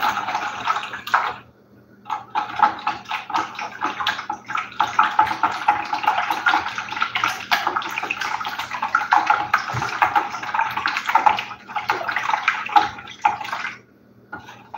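Whisk beating a thin liquid mix of milk, eggs, yeast and sugar in a glass bowl: a rapid, steady sloshing and swishing. It pauses briefly about a second in and stops about a second before the end.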